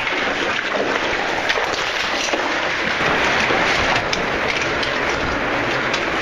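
Rushing water of an underground cave stream: a steady hiss, with a few faint clicks over it.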